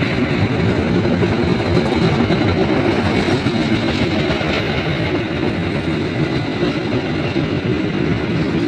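CC206 diesel locomotive running loud and steady under power: a dense, unbroken rumble with a faint steady high whine above it.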